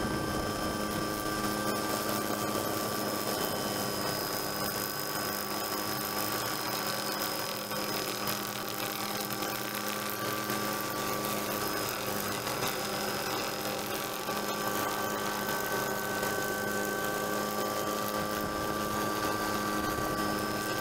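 Helicopter running steadily, heard from on board: a constant mechanical drone with several unchanging high whining tones.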